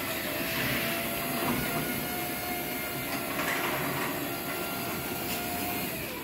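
Wiśniowski MIDO 600 ceiling-mounted garage door opener running steadily with a thin whine, pulling the sectional door up along its rail. Near the end the whine drops in pitch and the motor stops as the door reaches its open position.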